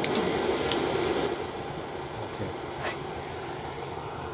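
Portable gas-canister camping stove burner running with a steady hiss after being lit, a little louder for the first second or so and then settling.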